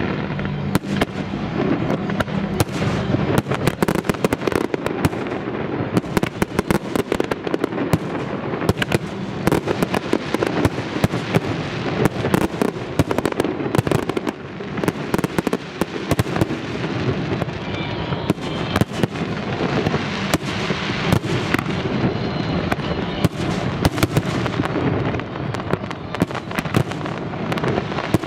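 A fireworks barrage: aerial shells bursting one after another in rapid succession, with dense crackling from crackle stars and a constant rumble underneath.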